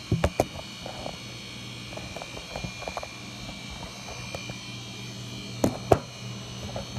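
A phone being handled and repositioned: three sharp knocks just after the start, small rubs and clicks, then two more knocks near the end, over a steady electrical hum.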